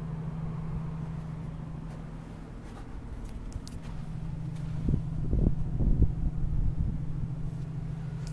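2009 International 7600 Vactor truck's diesel engine idling steadily, heard close up with the hood open, with a few louder low rumbles around the middle.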